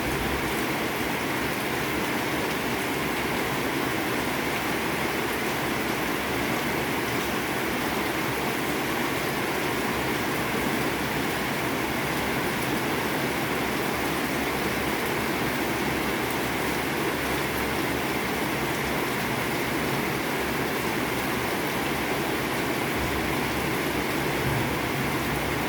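Heavy rain falling steadily, an even dense hiss with no single drops standing out.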